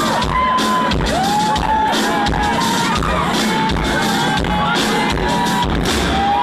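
Rock band playing live through a loud PA, drums hitting a steady beat about twice a second, with the crowd shouting and whooping along.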